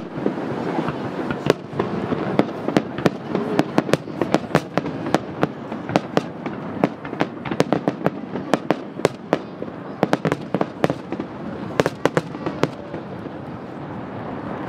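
Aerial firework shells bursting: an irregular, rapid run of sharp bangs and pops, several a second.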